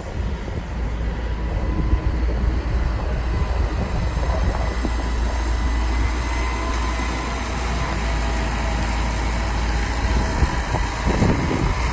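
2008 Chevrolet Silverado 2500 HD pickup driving slowly, its engine running with a steady low rumble.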